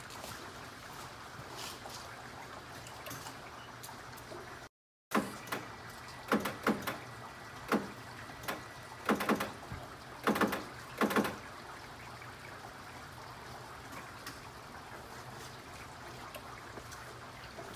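Quiet room tone with a low steady hum, broken after a brief dropout by a run of about nine sharp knocks and clunks spread over roughly six seconds.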